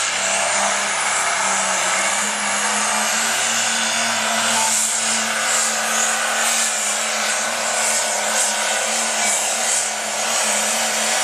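Heavy super stock pulling tractor's engine running hard at full throttle as it hauls the weight sled, a loud steady noise with a faint high whine rising slightly in the first few seconds.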